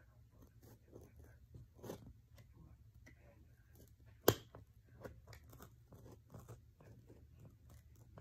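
Craft knife cutting around a circle of foam sheet, a faint, irregular scratching and crackling, with one sharp click about four seconds in.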